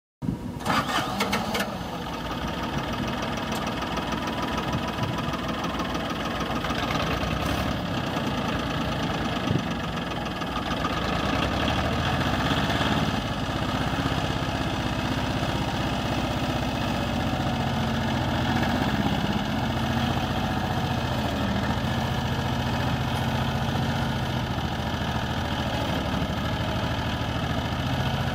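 Hinomoto E2302 compact diesel tractor engine running steadily with a diesel clatter, a few sharp clicks in the first two seconds. From about eleven seconds in, a steadier low hum settles in.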